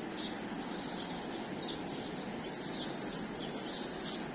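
Many small birds chirping together, a constant scatter of short high chirps over a steady hiss.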